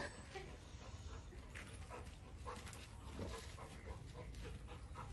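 Golden retriever making short, scattered sounds as it plays with a calf, over a low steady rumble.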